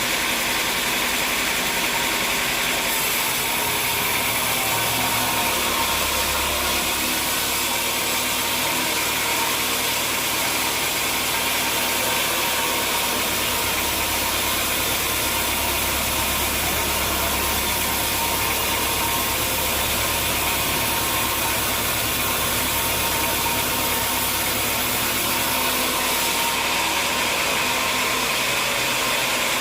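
Sawmill machinery running with a steady drone. A deeper rumble joins about three seconds in and drops away near the end.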